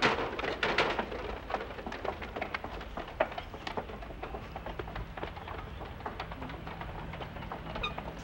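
Irregular clatter of many hooves tapping on a footbridge deck as several animals cross, busiest in the first second and then thinning to scattered taps.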